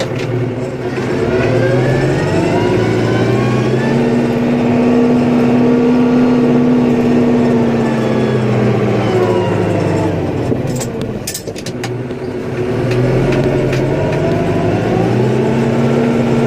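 Snowplow vehicle's engine revving up as it pushes snow, holding high for several seconds, dropping back about ten seconds in with a few sharp knocks, then revving up again.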